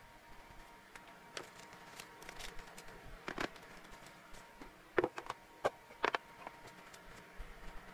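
Light handling sounds on a tabletop: scattered small clicks and knocks, a cluster of louder ones about five to six seconds in as a clear plastic food storage box is picked up and handled.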